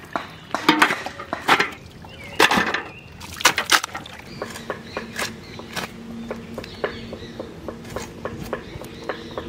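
Raw chicken pieces being sloshed and handled in a large pan of washing water, with several sharp wet strokes. Then come quicker, regular scraping strokes, a few a second, as a mrigal carp is scaled against an upright bonti blade.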